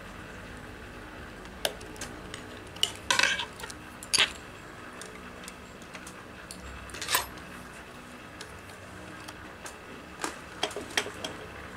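Scattered sharp metallic clinks and clicks of tools and small metal parts being handled on an industrial sewing machine, over a low steady hum. The clinks are the loudest sounds, with a cluster about three to four seconds in and a few more near the end.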